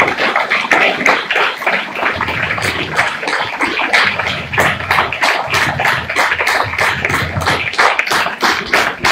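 Audience applauding, a dense run of distinct hand claps.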